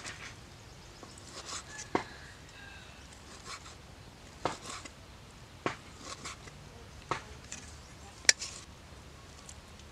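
Large kitchen knife chopping raw pork on a round wooden chopping board: about five separate sharp knocks at an uneven pace, the loudest near the end.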